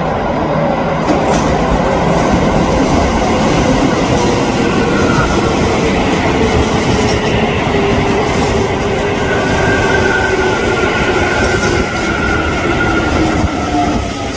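Electric commuter train running through the station over a steady rumble of wheels on rail. Its traction motors whine in several tones that slowly fall in pitch from about five seconds in, as the train slows under braking.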